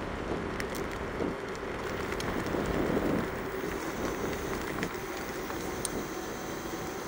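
Wind rushing over the microphone and tyres rolling on asphalt as the Bluetran Lightning is ridden at top speed, with a faint steady whine and a few light ticks.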